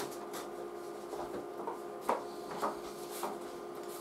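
A handful of soft, short rustles and scrapes of a sheet of paper being handled, over a steady electrical hum.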